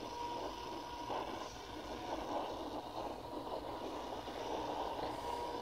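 Outdoor warning sirens sounding a steady tone in the distance, fading in and out, while strong wind buffets the microphone with a rumbling rush.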